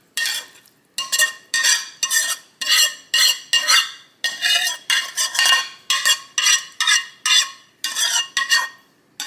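Metal spoon scraping sautéed vegetables out of a bowl, about two strokes a second, each stroke with a short ringing clink from the bowl.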